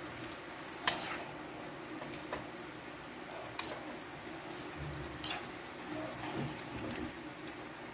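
A ladle stirring and tossing bean sprouts and chicken in a frying pan: several sharp clicks as it knocks the pan, the loudest about a second in, over a low, steady sizzle.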